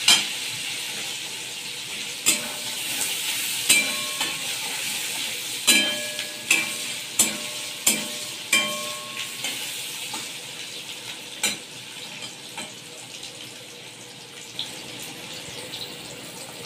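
Chopped onions sizzling in oil in a kadhai as a metal spatula stirs them, clacking and scraping against the pan about a dozen times at irregular intervals. The sizzle gradually fades.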